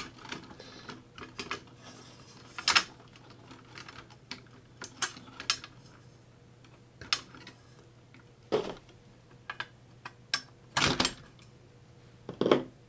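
Irregular clicks, taps and knocks as the top plate of a Pioneer DJM-400 DJ mixer is worked loose and lifted off its circuit boards, with a few louder knocks scattered through.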